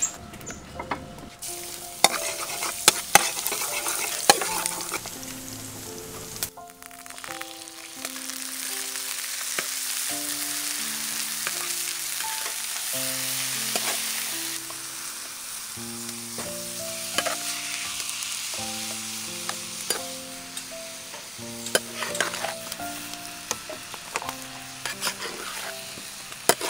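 Food sizzling as it is stir-fried in a shallow non-stick pan, with a metal spatula scraping and clicking against the pan, over background music with a simple melody.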